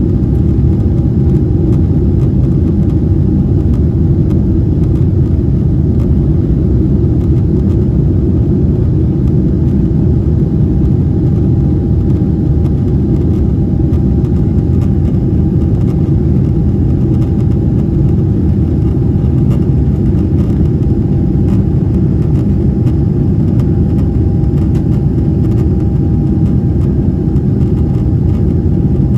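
Cabin noise of a Boeing 777-300ER climbing out, its GE90 engines running steadily at climb power, heard from inside the cabin: a steady low rumble with a faint steady hum above it.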